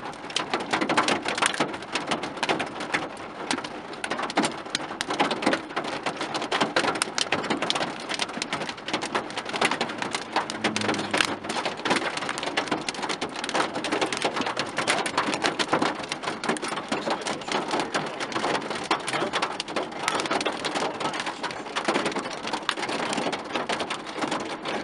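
Hailstones hitting the car's roof and windows, heard from inside the cabin: a dense, steady clatter of small hard impacts.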